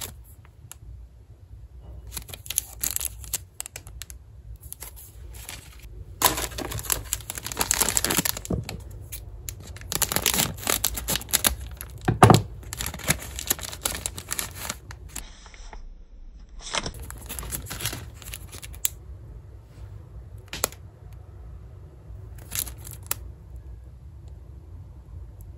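Plastic wafer-pack wrappers crinkling and tearing open by hand in irregular bursts, busiest in the middle. A few isolated light clicks and taps come near the end.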